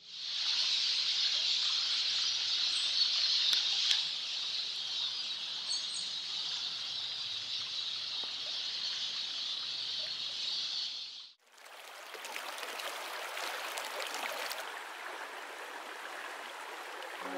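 Steady high hiss of running water, then, after a sudden break about eleven seconds in, the fuller rushing of a small fast-flowing stream over stones.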